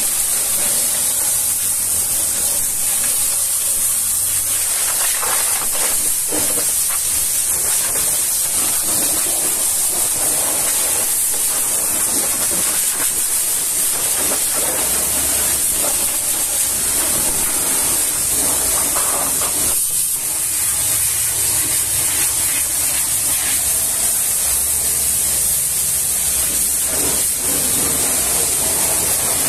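High-pressure washer lance spraying a continuous jet of water onto a truck's engine and steel chassis frame: a steady, unbroken hiss.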